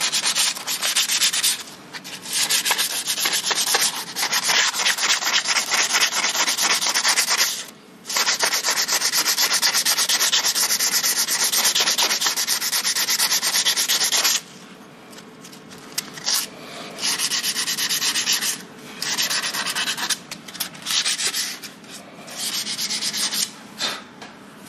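80-grit abrasive paper rubbed by hand across the metal face of a front wheel hub flange in rapid back-and-forth strokes, with two short pauses. It is cleaning rust and build-up off the hub so a new brake disc will sit flat. About halfway through the sanding stops, leaving scattered lighter rubbing and knocks.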